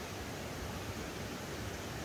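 Steady rushing noise of river water flowing, even and unbroken.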